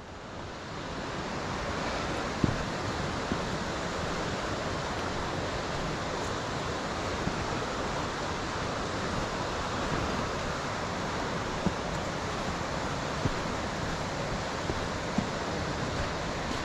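Steady rush of fast water tumbling over rocks in a stream, swelling over the first couple of seconds and then holding even, with a few faint knocks.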